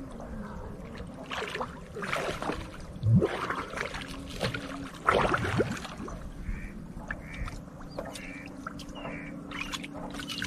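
Water splashing and sloshing as a swimmer beside a wooden canoe ducks under and resurfaces, with louder splashes about three and five seconds in.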